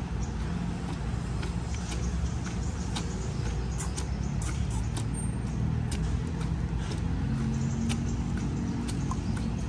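Steady low rumble of distant road traffic, with scattered light clicks throughout.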